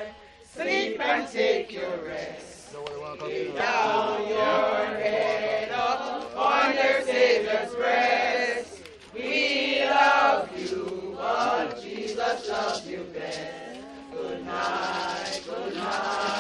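A group of mourners singing a hymn together, unaccompanied voices with held, drawn-out notes.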